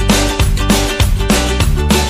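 Background music with a quick, steady beat, about three beats a second.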